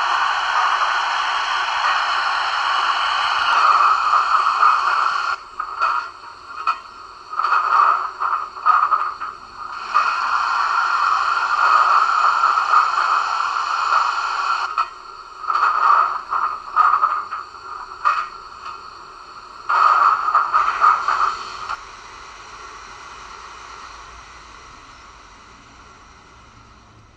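Steam hiss from a Dapol Black Label A4 model locomotive's onboard sound, steady at first, then breaking into short irregular bursts, and fading away over the last few seconds.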